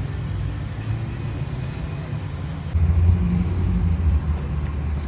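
Motorcycle running at road speed, its engine and wind rumbling low and steady on the microphone, getting louder a little under three seconds in.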